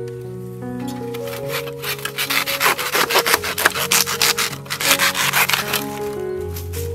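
Hand saw cutting through a bamboo shoot at its base: a run of quick back-and-forth sawing strokes, about four a second, starting about a second and a half in and stopping at about six seconds as the shoot is severed. Background music plays throughout.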